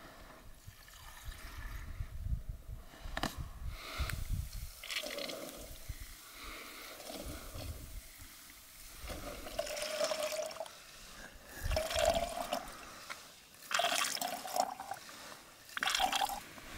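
Filtered water from a squeeze-type water filter bag trickling and splashing through its hose into a plastic drinking bottle, coming in uneven spurts as the bag is squeezed.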